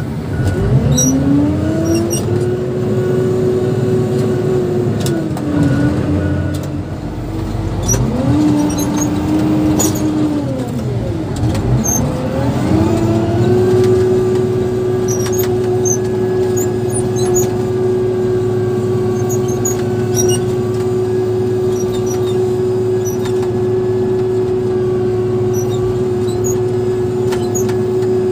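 Motor grader's diesel engine running, heard from inside the cab. Its pitch drops and climbs again several times in the first half, then holds steady as the machine drives on.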